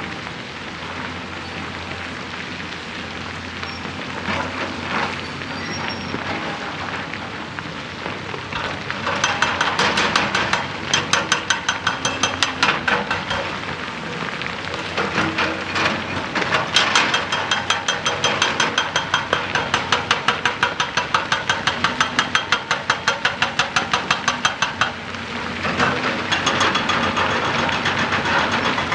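Excavator-mounted hydraulic rock breaker hammering rock in three spells of rapid, even blows, the longest about eight seconds, over the steady running of the excavator's diesel engine.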